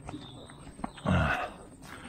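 Footsteps of a walker on a soft, muddy path, a few light steps with one louder, short sound about a second in.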